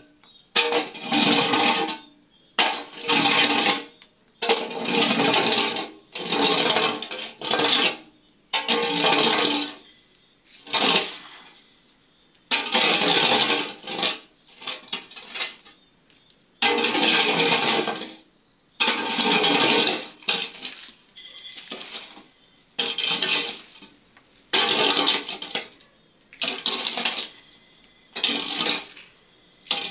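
A long iron bar scraping and dragging concrete rubble and debris out of a broken-open tomb niche, in repeated strokes about every one to two seconds.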